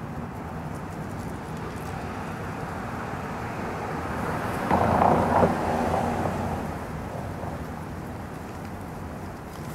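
A road vehicle passing in the street: its engine and tyre noise swells, peaks loudly about halfway through, then fades away over the ambient traffic hum.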